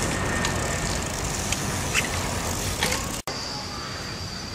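Steady outdoor street background noise with a low rumble and a few light clicks. It breaks off abruptly about three seconds in, and after the cut a steady high whine runs under the noise.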